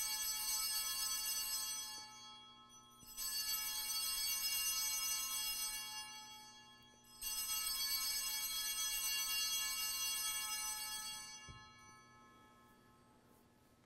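Altar bells rung three times, a few seconds apart, each ring bright and sustained, the last fading out near the end. They mark the elevation of the consecrated chalice at Mass.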